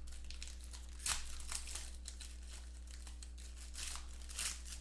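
Trading-card skinny-pack wrapper being torn open and crinkled by hand: irregular crackles, the loudest about a second in.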